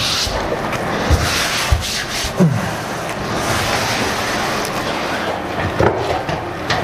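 Steady rustling and scraping of a large sheet of vinyl interior film being pressed and smoothed onto a ceiling by hand and squeegee, with a few soft knocks.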